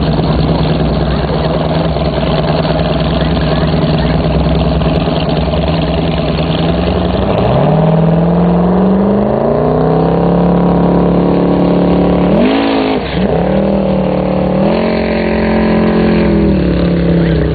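Jet boat's twin-turbo big-block Chevy V8 running loudly: a steady idle at first, then the pitch climbs as it accelerates from about halfway. It drops sharply and comes straight back up, then holds a higher steady pitch at speed near the end.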